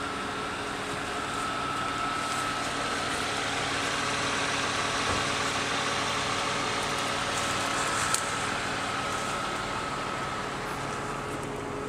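A car engine idling steadily, an even hum that does not change, with one small click about eight seconds in.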